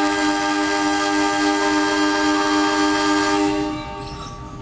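Diesel locomotive's air horn sounding one long, loud chord of several tones, held steady and cutting off almost four seconds in. It is a train's horn signal given at the station platform by a locomotive standing ready to leave.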